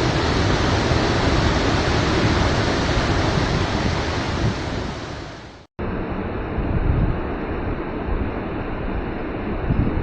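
Dettifoss waterfall's steady rushing roar of falling water, deep and full. A little past halfway it fades and drops out for a moment, then comes back with a slightly different sound.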